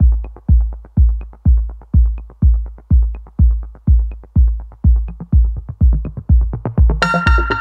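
Electronic dance music with a steady kick drum beat at about two beats a second and light ticking percussion; a bright synth melody comes in near the end.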